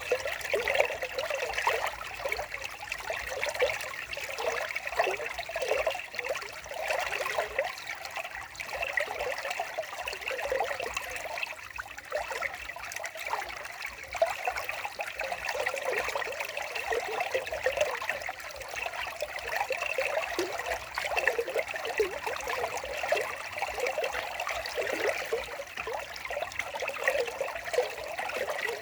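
Running water trickling steadily, like a small stream.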